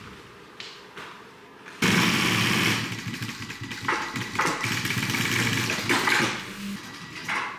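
A motor-driven machine starts suddenly about two seconds in and runs loudly for about five seconds, with a few brief dips, then stops.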